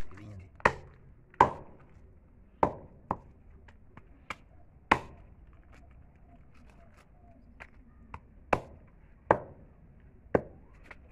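Heavy broad-bladed knife chopping goat head meat and bone against a wooden chopping block: about a dozen sharp, irregular chops, with a pause of about two seconds midway.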